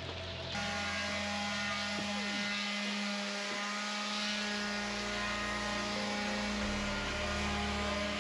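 A steady motor hum: one constant tone with several steadier tones above it and a hiss that comes in about half a second in.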